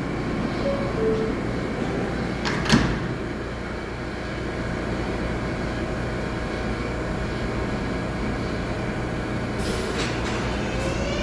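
Idling R143 subway train at a station. A short two-note chime, falling in pitch, sounds about a second in, and the sliding doors shut with a loud knock a couple of seconds later. Near the end there is a brief hiss, then the traction motors begin a rising whine as the train starts off.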